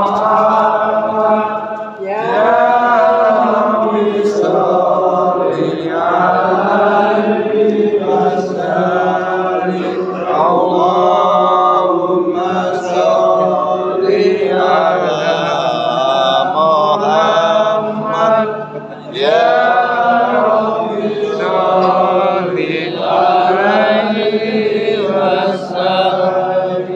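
Islamic devotional chanting: voices intoning Arabic verses in long melodic phrases, with brief breaths between lines about two seconds in and again near the middle.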